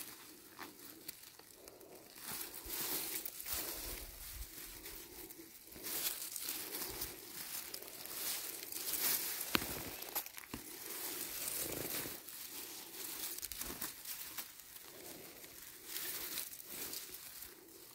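Faint, irregular rustling and crunching in dry forest undergrowth as someone moves through it and handles the plants, with a sharp snap about nine and a half seconds in.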